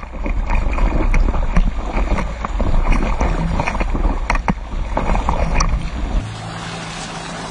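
Towed bodyboard skimming across the lake's wake: rushing, splashing water with heavy wind buffeting on the microphone and repeated sharp knocks and slaps as the board bounces over the waves. About six seconds in the low wind rumble drops away, leaving a steadier hiss of water.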